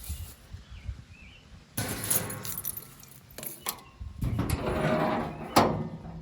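Sheet-metal twine box on a New Holland 316 square baler being opened: two stretches of scraping and rattling with a few knocks between them, and a sharp clack near the end.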